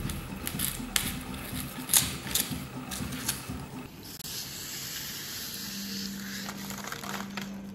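Irregular sharp clicks and crackly scraping from a craft knife cutting slots in foam board, during the first half. A steady hiss with a low hum follows for the last few seconds.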